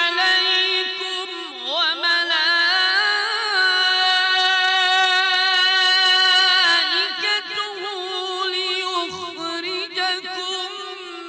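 A man's voice reciting the Quran in the melodic mujawwad style, holding long drawn-out notes with quick wavering ornaments and dropping to a lower pitch near the end.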